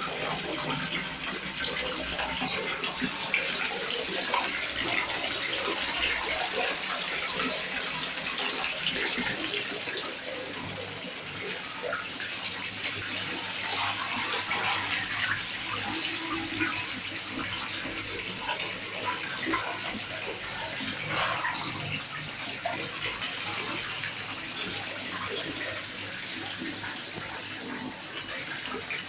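Water running and splashing steadily into a fish tank, much like a tap filling a bath, a little quieter after about ten seconds.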